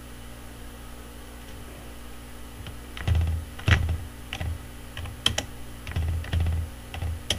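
Computer keyboard keystrokes: a run of about eight separate taps, each with a dull thud, starting about three seconds in at an uneven pace.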